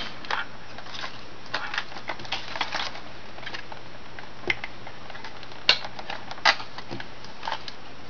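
Scattered small plastic clicks and rattles from a dishwasher control panel being handled as its bracket-lever clips are worked to free the control board, with two sharper clicks a little past the middle.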